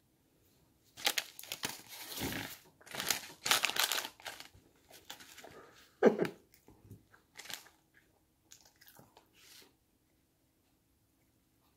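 Close-up crunching and crinkling of a snack being eaten and its packaging handled, in irregular bursts with the loudest crunch about six seconds in.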